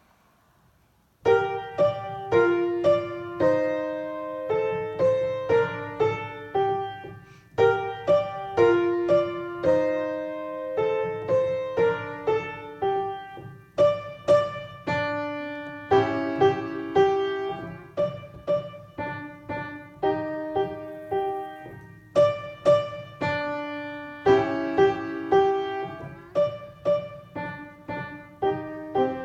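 Piano playing a short children's piece, starting about a second in: a melody of separately struck notes that switches between detached staccato notes and smooth legato phrases, and between loud and soft, with short phrases repeated.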